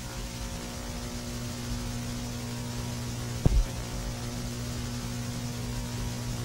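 Steady low electrical hum over an even hiss, with a single short pop about halfway through.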